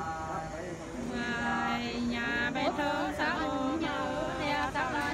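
Unaccompanied voice singing a Nùng sli folk song: a long held note, then a run of quick sliding, wavering ornaments.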